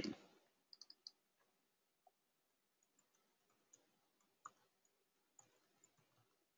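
Near silence with a few faint, short clicks from a computer keyboard and mouse: three quick ones about a second in, then single clicks about four and a half and five and a half seconds in.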